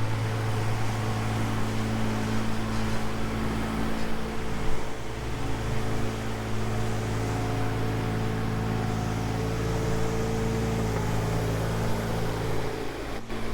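Kubota KX018 mini excavator's diesel engine running steadily while the machine grades down the edge of a lawn.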